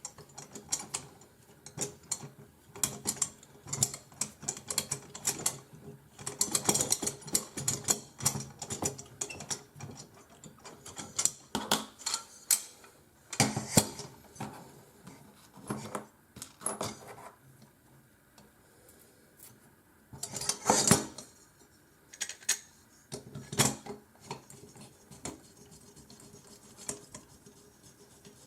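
Irregular clinking and rattling of small aluminum frame parts and hardware being handled and fitted together while a filament spool holder is assembled by hand. There is a quieter spell about two-thirds of the way through, then a loud burst of clatter.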